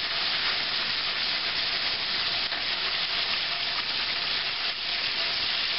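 Hot frying oil sizzling steadily in a skillet as a breaded chicken fried steak is lifted out with tongs.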